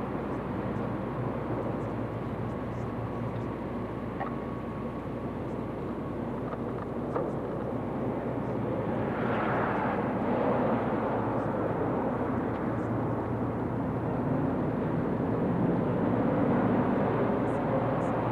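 Street traffic: a steady rush of passing cars and engines, growing louder about nine to ten seconds in.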